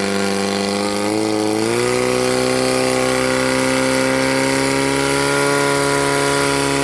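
Portable fire pump's engine running at full throttle. Its pitch climbs over the first two seconds, then holds steady at high revs under load while it drives water into the hoses.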